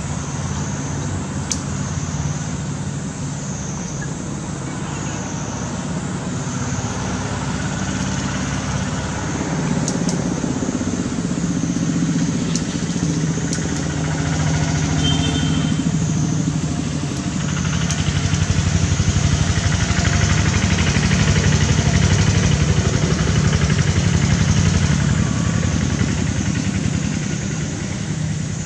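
A steady mechanical drone like a running engine, growing somewhat louder in the second half, with a faint high pulsing buzz above it and a few light clicks.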